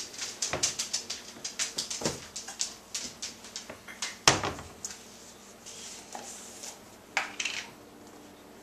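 Kitchen handling sounds: a quick run of clicks and clatter as items are picked up and set down, one louder knock about four seconds in, then softer rustling as a plastic bag and a peanut butter jar are handled.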